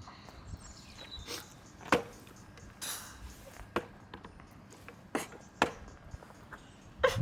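Scattered sharp clicks and taps, spaced about a second apart, over faint room sound, picked up by a camera microphone. Right at the end a loud, heavy low sound sets in.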